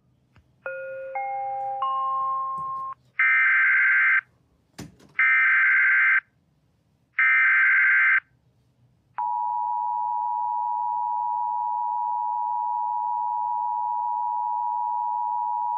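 Emergency Alert System broadcast tones for a weather warning. A three-note rising chime is followed by three one-second bursts of the buzzing SAME digital header, then the steady two-tone EAS attention signal begins about nine seconds in and holds.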